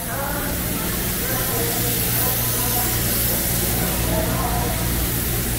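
Steady hissing background noise with a low hum, and faint voices murmuring under it.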